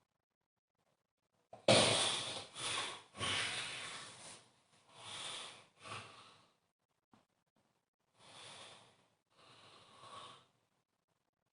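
A sleeping person snoring: a sudden loud snore about two seconds in, then a run of several more noisy breaths, and two quieter ones near the end.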